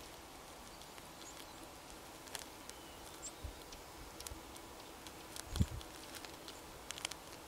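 Faint outdoor ambience with scattered small clicks and ticks, a few faint high bird chirps, and one soft low thump a little past the middle.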